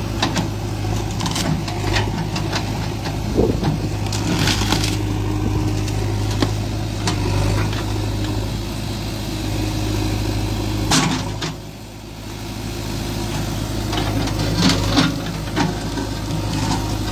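JCB backhoe loader's diesel engine running steadily while its arm works through a storm-felled tree, with scattered sharp cracks and snaps of wood and branches.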